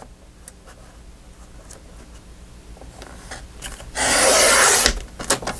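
Faint rustling and small knocks of paper and craft supplies being handled on a desk, then about four seconds in a loud rub or scrape lasting about a second, as something is slid across the desktop, followed by a couple of light clicks.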